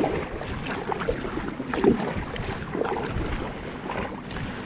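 Choppy water splashing and lapping around a kayak, with irregular small knocks and one louder splash about two seconds in, over wind rumbling on the microphone.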